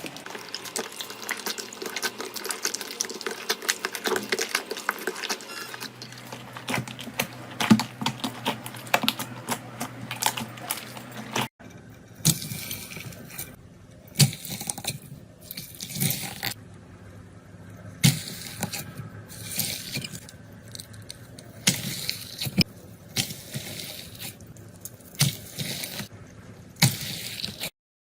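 Slime being handled: about eleven seconds of dense, wet crackling and popping, then a sudden cut to separate squishes of slime being pressed and released about every two seconds.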